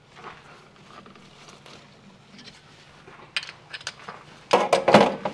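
Metal clicks and clinks from handling the honing-stone holder while swapping stones on a Sunnen honing machine, with a louder clatter near the end.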